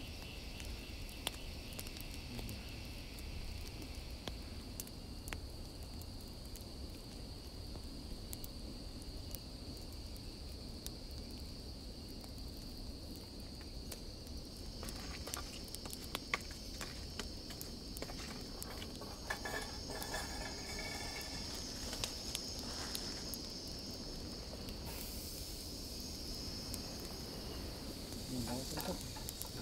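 Steady high drone of insects, with a wood campfire crackling and popping in sharp clicks from about halfway through.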